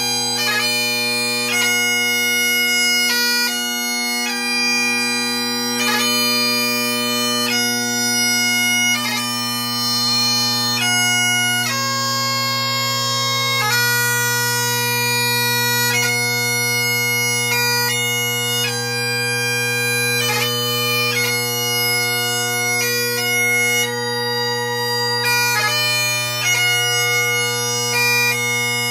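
Great Highland bagpipe playing a slow piobaireachd: steady drones under long held chanter notes, broken by quick grace-note flourishes.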